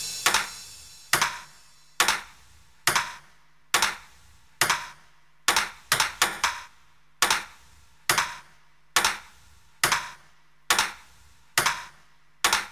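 Sparse breakdown in an electronic dance track: a single sharp percussive hit repeats a little faster than once a second, sometimes doubled, over a faint steady low tone.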